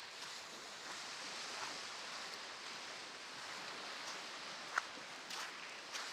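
Steady hiss of surf on a beach, with faint footsteps crunching in sand and one sharp click near the end.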